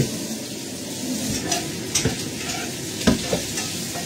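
Food sizzling in a hot pan while being stirred, with a metal utensil clanking against the pan a few times, the loudest about three seconds in.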